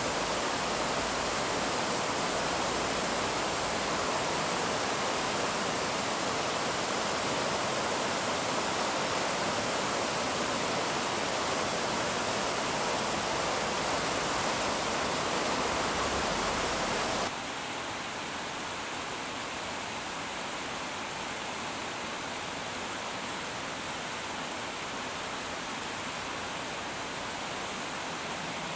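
Steady rushing of flowing water, an even hiss with no distinct splashes. About two-thirds of the way through it drops abruptly to a quieter, duller level and carries on steadily.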